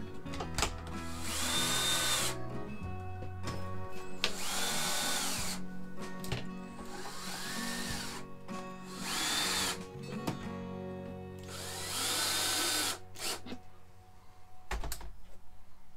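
Cordless drill running in four short bursts, its motor whine rising, holding and falling away each time, with background music underneath.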